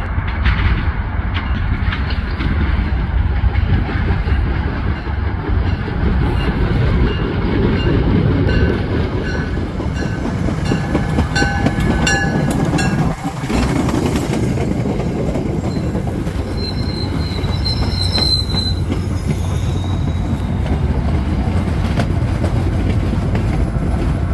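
MBTA push-pull commuter train passing close by at speed: steady rumble of steel wheels on rail with clickety-clack, and thin, high wheel squeals in the middle stretch.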